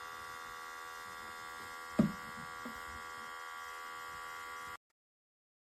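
Outin Nano portable espresso machine's small electric pump buzzing steadily while no coffee comes out, with one sharp knock about two seconds in. The buzz cuts off suddenly near the end.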